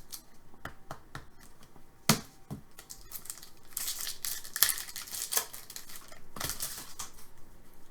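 Trading cards and their foil pack wrapper being handled: crinkling and rustling with scattered small clicks, and a sharp click about two seconds in.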